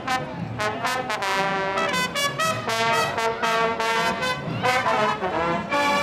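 High school marching band playing, the brass carrying the tune in a run of short rhythmic notes, with sharp percussion hits through it.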